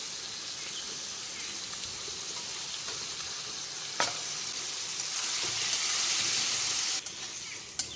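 Prawns, onions and chopped tomatoes sizzling in hot mustard oil in a steel kadai, stirred with a steel spatula. There is a sharp clink about four seconds in, the sizzle grows louder as the mix is stirred, then drops suddenly near the end.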